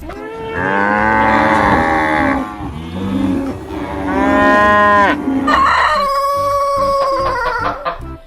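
Cow mooing: two long moos of about two seconds each, followed by a higher, steadier call lasting about two seconds.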